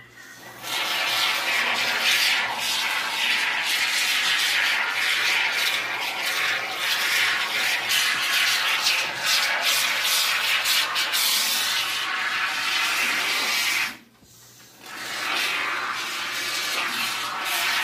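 Aerosol can of Great Stuff expanding spray foam hissing unevenly as foam is pushed out through its straw applicator. The spray stops for under a second about fourteen seconds in, then starts again.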